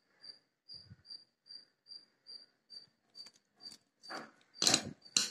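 A hand squishing and mixing thick urad dal batter with chopped onions in a ceramic bowl, wet squelches that grow louder near the end. Behind it a cricket chirps steadily, about two or three chirps a second.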